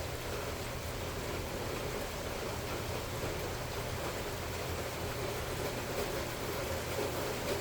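Steady rain falling during a thunderstorm, an even hiss with no thunder.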